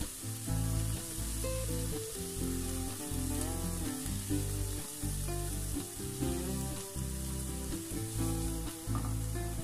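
Diced vegetables sautéing in oil in a nonstick pan, a steady sizzle, stirred with a plastic spatula. Background music with changing low notes plays underneath.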